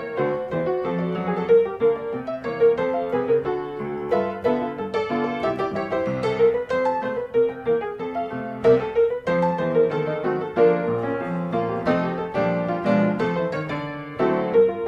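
Background piano music: a steady stream of quick keyboard notes over held lower chords.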